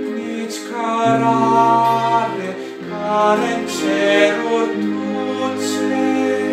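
A slow Romanian Catholic Lenten hymn: a male voice singing, accompanied by acoustic guitar, violin and keyboard, in long held notes over a stepping bass line.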